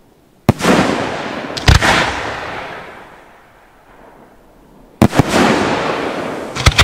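Aerial firework shells bursting: a sharp bang about half a second in and two more close together a second later, then another volley of bangs about five seconds in and near the end, each trailing off in a long fading rumble.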